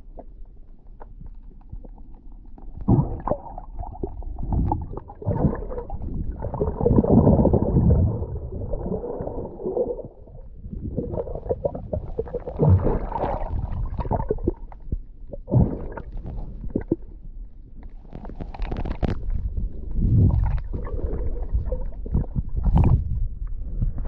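Water rushing and gurgling around an underwater camera as it moves, in irregular muffled surges that start a few seconds in, with a few sharper splashy spikes near the end.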